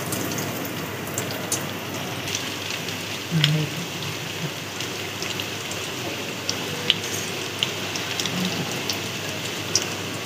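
Breaded chicken cheese sticks deep-frying in hot oil: a steady sizzle with scattered pops and crackles.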